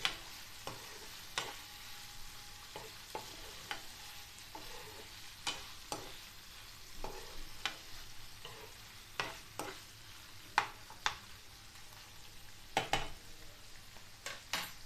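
Chicken liver pieces frying in oil in a nonstick pan: a steady sizzle, with irregular sharp clicks and scrapes as a spatula stirs them against the pan.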